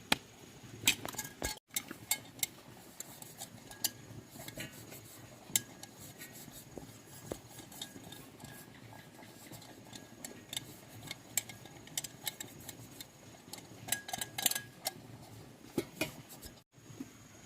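Scattered light metallic clinks and taps, like small metal parts and hand tools being handled and set down during repair work, busiest about a second in and again near the end.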